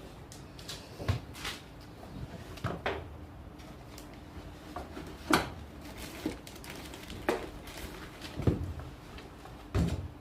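Scattered clicks and knocks of hand tools and metal parts being handled on a dirt-bike wheel while the tube valve core is taken out, about eight separate knocks with the loudest about five seconds in.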